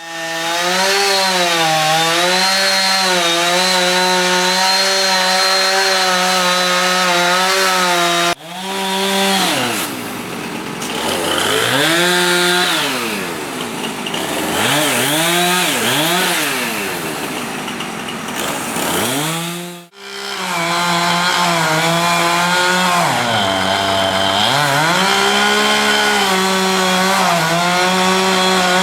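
Chainsaw cutting into a large loblolly pine, running at high speed. Its pitch holds steady at first, then repeatedly dips and rises. The sound breaks off abruptly twice, about eight seconds in and again about twenty seconds in.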